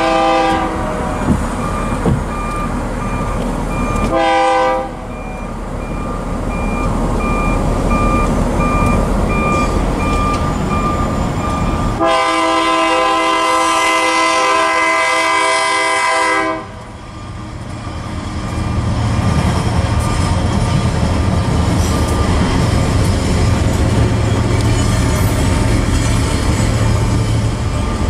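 BNSF diesel locomotive's multi-chime air horn sounding for a grade crossing. A blast ends about half a second in, a short blast comes about four seconds in, and a long blast runs from about twelve to sixteen seconds. Then the locomotive's low engine rumble grows steadily louder as it draws near.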